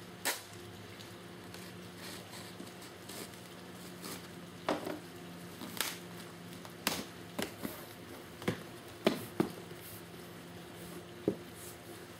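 A shipping box and its packaging being opened and handled: scattered taps, knocks and crinkly rustles, some sharp, over a steady low room hum.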